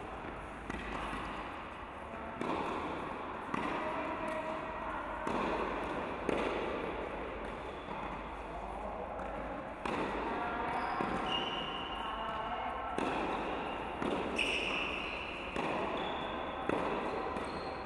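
Tennis balls being struck by rackets and bouncing on an indoor hard court during a baseline rally, a sharp pop every second or two.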